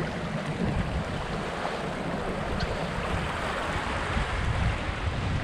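Wind buffeting the microphone with a deep, uneven rumble over a steady rush of water along the hull of an X-Yachts X4.0 sailing yacht under way.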